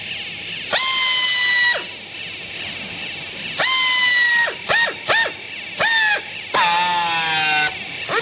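A high-pitched motor whine in short bursts, each spinning up fast and dropping away as it stops, with a hiss over it. There are seven bursts, the longest about a second, the rest shorter, some only a fraction of a second.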